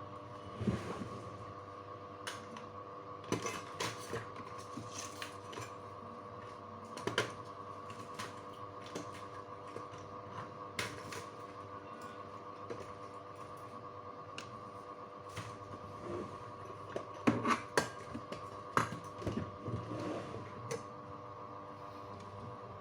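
Irregular light clicks and taps of small parts and tools being handled during a repair, over a steady hum with a faint whine. The clicks come thicker and louder about three-quarters of the way through.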